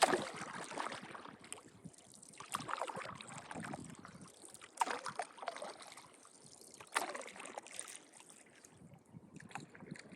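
Canoe paddle strokes splashing and swishing in lake water, a stroke about every two and a half seconds.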